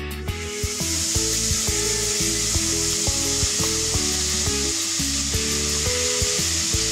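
Diced onion and shiitake mushrooms sizzling in hot sesame oil. The sizzle starts about half a second in, as they hit the oil, and keeps up steadily. Background music with soft plucked notes plays throughout.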